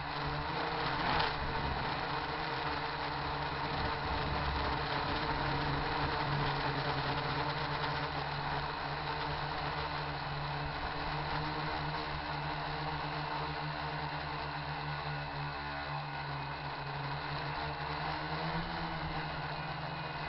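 RC quadcopter's electric motors and propellers buzzing steadily in flight, with a brief rise in pitch near the end.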